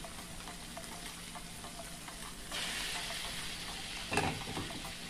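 Saltfish, seasonings and freshly added ackee frying in oil in a pot, with light clicks of stirring. The sizzle grows louder about halfway through, and there is a short knock against the pot near the end.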